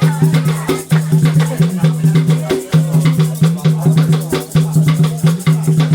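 Loud dance music: a fast, steady percussion beat over a pulsing bass note.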